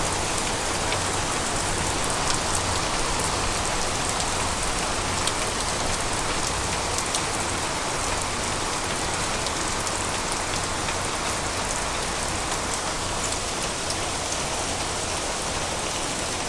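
Heavy rain falling steadily on a garden and a wooden deck, an even hiss with scattered sharp ticks of close drops.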